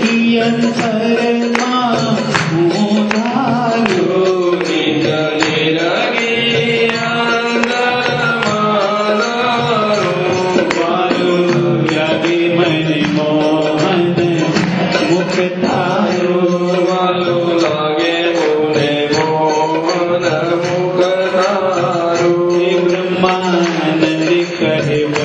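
Devotional hymn singing (bhajan/kirtan) with a melodic singing voice over steady percussion accompaniment.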